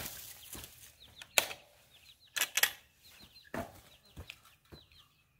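Baby chicks peeping with many small falling chirps, over sharp clanks and rattles from a wire-mesh coop door being handled and opened; the loudest clank comes right at the start, with a quick double clatter about two and a half seconds in.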